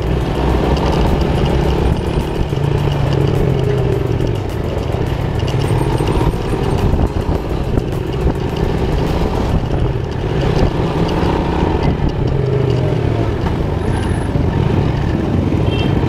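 Motorcycle engine running as it is ridden at low speed through traffic, its note shifting a little with the throttle.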